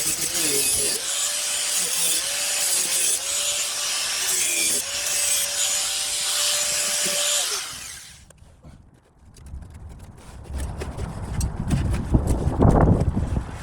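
Angle grinder cutting rusted steel out of a car body, its motor tone dipping and recovering under load, then switched off about seven and a half seconds in. After a short quiet spell come low rumbling and knocks.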